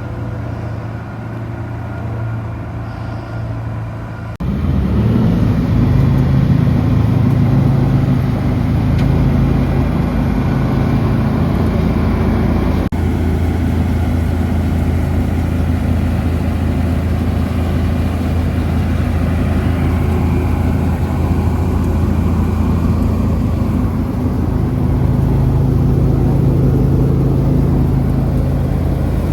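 Heavy farm machinery's engine running steadily, in a few joined clips; the engine's note changes abruptly about four seconds in and again about thirteen seconds in.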